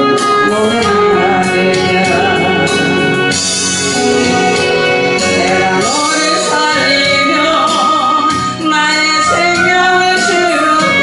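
A woman singing a Korean praise song into a microphone over steady instrumental accompaniment, her voice gliding and holding long notes.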